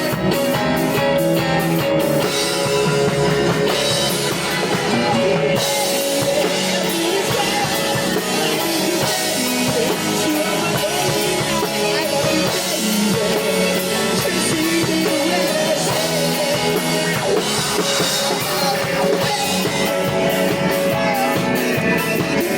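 Live rock band playing an instrumental passage on electric guitar, bass and drum kit, with no lead vocal.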